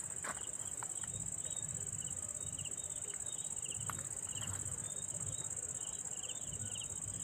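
Insects trilling: a steady high-pitched trill, with shorter chirps repeating at a lower pitch. A single sharp click comes about four seconds in.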